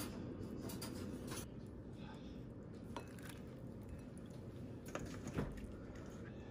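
Faint clicks of a serving utensil against a ceramic bowl while radish salad is dished out, a few separate taps over a steady low hum.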